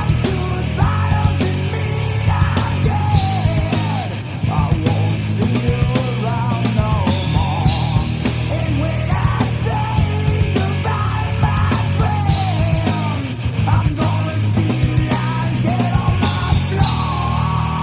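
Grunge rock band playing loud, hard-edged rock, with a sung and yelled vocal line over the band throughout.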